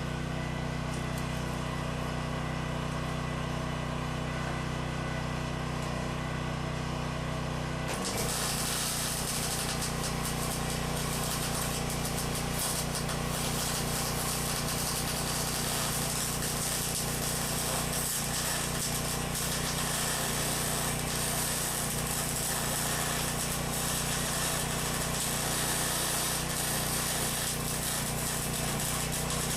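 A welder hums steadily; about eight seconds in, the arc strikes and a continuous welding crackle runs on, dense with fine ticks.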